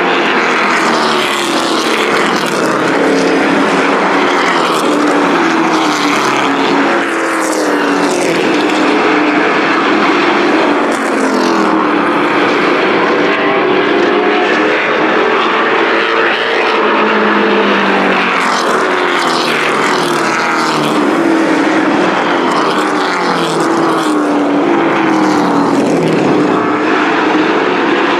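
Several pickup-bodied race trucks' engines running hard on a paved oval. Their overlapping engine notes keep rising and falling in pitch as the trucks accelerate and lift through the laps.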